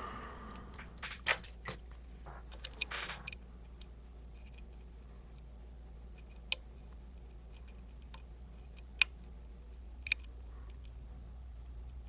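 Steel lock picks and tension tool clicking and scraping in the keyway of an Emhart Black Belt lock while its pins are being set, with a quick run of metal clicks and rattling over the first few seconds, then a few single sharp clicks spread apart.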